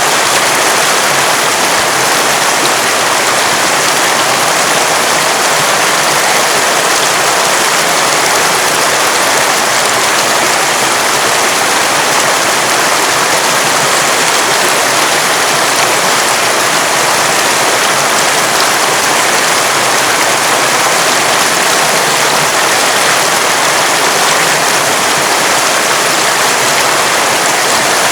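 Running water of a river, a steady loud rush with no change in level.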